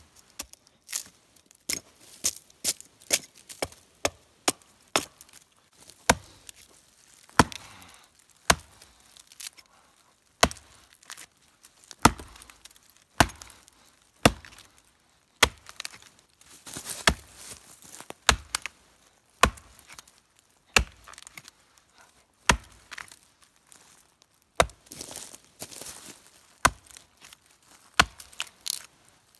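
Hatchet chopping into the trunk of a thin pine near its base: a long series of sharp wooden chops, roughly one a second, coming quicker over the first few seconds.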